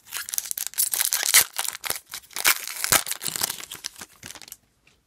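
Foil wrapper of a hockey-card pack crinkling as it is opened and the cards are pulled out; the crinkling stops about four and a half seconds in.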